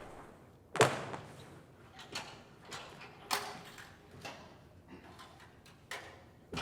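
A series of irregular light knocks and clicks, like small objects being handled or set down, with one sharper knock about a second in.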